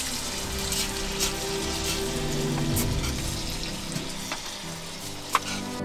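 A steady crackling hiss, with soft background music underneath and a sharp click near the end.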